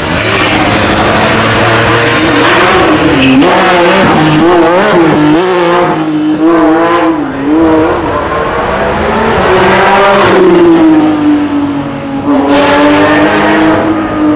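Porsche 911 GT3 Cup race car's flat-six engine revving loudly, its pitch rising and falling again and again. Later one long note climbs and then slowly falls as the car pulls away.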